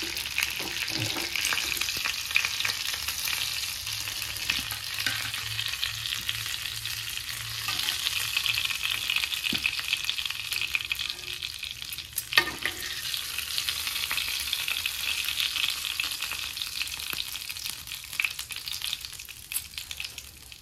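Oil sizzling and crackling on a thick flat tawa around chicken drumsticks frying in spices, with scattered clicks of metal tongs as the pieces are lifted, one sharper tap about twelve seconds in. The sizzle eases off near the end.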